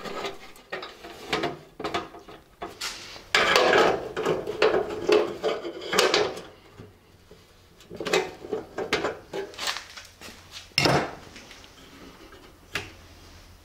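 Half-inch black iron pipe and fittings clinking and scraping against the steel walls of an ammo-can stove body as the pipe is held in place. Scattered clicks, a longer stretch of clattering about three to six seconds in, and a sharp metal knock near eleven seconds.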